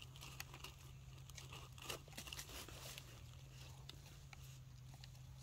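Near silence: faint scattered clicks and crackles over a low steady hum.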